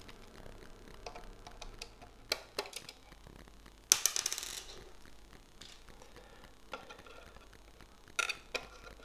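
Light clicks and ticks of a screwdriver backing screws out of a small electronics case, with small screws and the screwdriver set down on a wooden tabletop; the loudest is a sharp clatter with a short ring about four seconds in.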